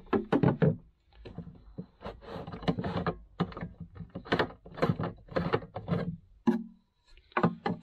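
Plastic screw cap of a 5-litre Kildwick urine container being unscrewed by hand: groups of short plastic clicks and scrapes, with brief pauses between them.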